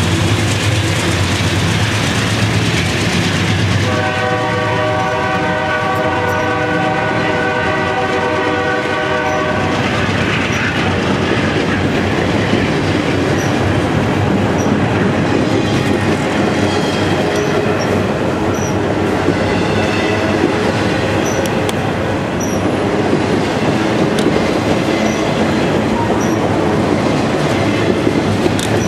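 A BNSF freight train passes close by at speed. Diesel locomotives drone past first, and a train horn sounds for about five seconds starting about four seconds in. The autorack cars then roll by with steady wheel rumble and clickety-clack over the rail joints.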